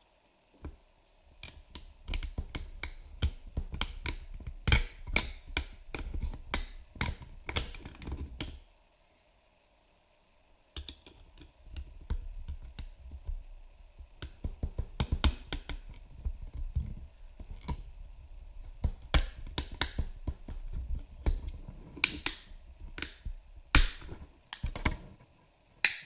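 3D-printed plastic docking-station parts handled and pressed together: many quick clicks and taps of plastic on plastic over a low handling rumble, in two bouts with a pause of about two seconds between, the sharpest clicks near the end.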